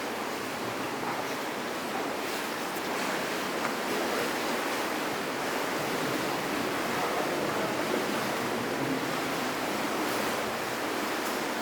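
Steady rushing of water, an even unbroken noise.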